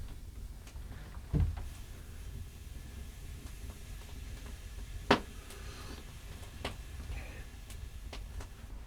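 A dull thud about a second and a half in, then a sharp knock about five seconds in and a few lighter clicks later, over a low steady rumble.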